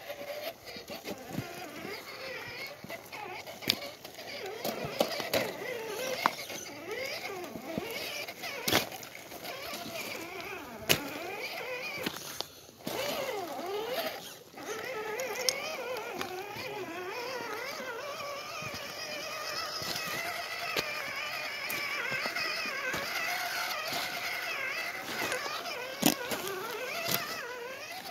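Electric motor and gear drive of an Axial SCX10 II Trailfinder 2 RC rock crawler whining, its pitch rising and falling with the throttle as it crawls over rocks, with scattered sharp clicks and knocks of the tyres and chassis on stone.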